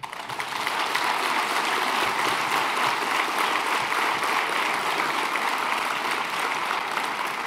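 A large auditorium audience applauding: dense clapping that swells over the first second, holds steady, and begins to die down near the end.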